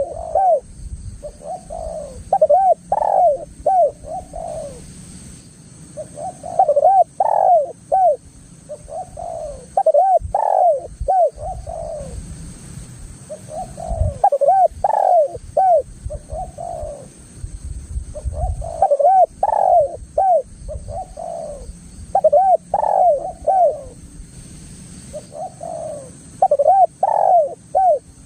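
Spotted dove (tekukur) singing its cooing song over and over: runs of several quick coos, a new run every three to four seconds, with a low rumble beneath.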